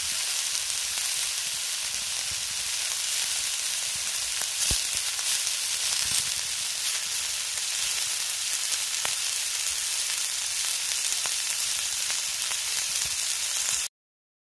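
Food sizzling and frying in a pan: a steady hiss with scattered small pops, cut off abruptly near the end.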